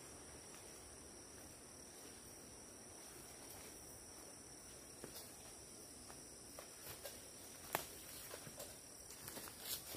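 Steady high-pitched chorus of forest insects such as crickets. From about halfway through, scattered clicks and snaps break in, the sharpest about three-quarters of the way through.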